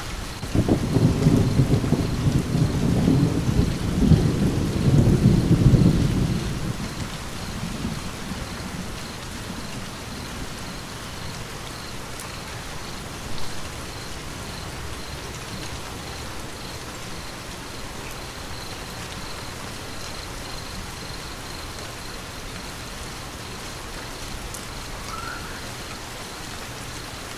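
Steady rain with a rumble of thunder that starts about half a second in, swells for some six seconds and dies away by about eight seconds, leaving the rain alone.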